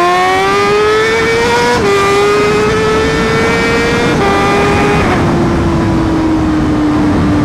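Honda Fireblade's inline-four engine pulling away under throttle. Its pitch climbs, drops at upshifts about two and four seconds in, then sinks slowly as the throttle eases off.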